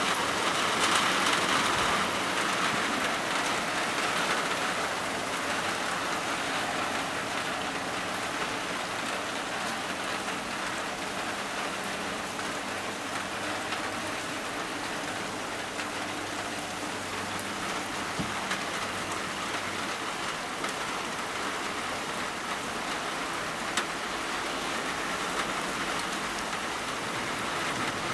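Steady thunderstorm rain falling, with a few sharp single drop taps. It is a little heavier in the first few seconds.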